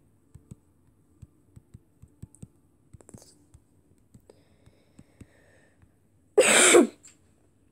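Fingertips tapping keys on a tablet's touchscreen keyboard: a run of light taps, several a second, for about five seconds. Then, a little over six seconds in, a single short, loud cough.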